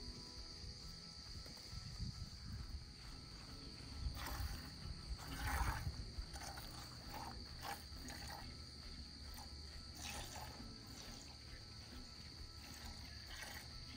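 Steady high-pitched chirring of crickets, with a few louder irregular rustles and scuffs, the loudest about five and a half seconds in.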